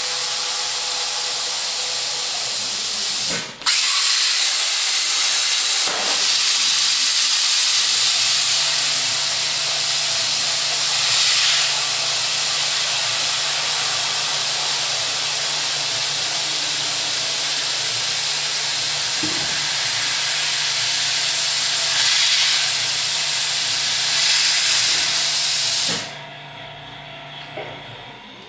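Plasma cutter torch hissing steadily as it cuts metal, with a low steady hum underneath for much of the time. The hiss breaks off for a moment about three and a half seconds in, then stops a couple of seconds before the end, leaving a much quieter sound.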